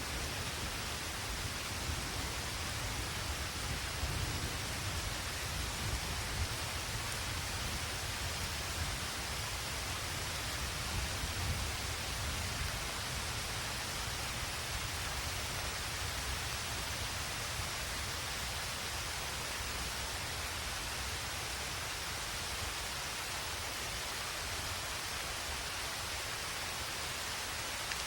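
Heavy rain pouring steadily, a dense even hiss, with a low rumble underneath that is stronger for the first dozen seconds and then settles.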